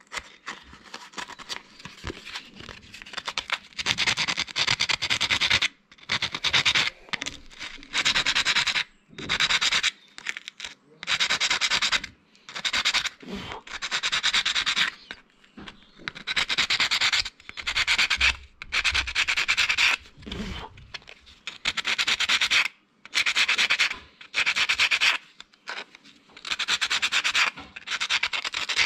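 Sandpaper rubbing on a copper contact of a Kubota tractor starter motor, in strokes of about a second with short pauses between them. The copper is being lightly sanded because it is worn from electrical arcing.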